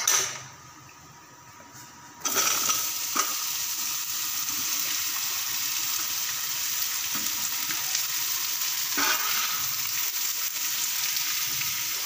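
Fenugreek seeds frying in hot oil in a kadai. About two seconds in, ash gourd (petha) cubes go into the oil and a loud, steady sizzle starts and keeps going.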